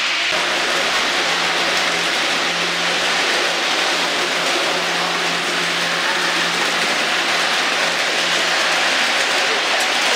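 HO-scale model trains running on the layout: a steady rushing rumble of small wheels rolling on metal rails, with a faint low motor hum.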